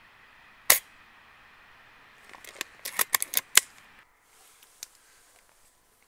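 A spring-powered bolt-action airsoft sniper rifle (Tokyo Marui VSR-10) fires once with a single sharp crack under a second in, over a steady faint hiss. About two seconds later comes a quick run of eight or so sharp mechanical clicks and knocks, then fainter hiss with a couple of small ticks.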